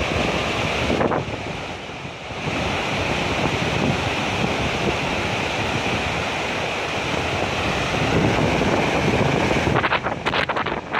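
Muddy floodwater of a swollen river rushing past in a steady, even roar of water. Wind buffets the microphone, turning choppy about a second before the end.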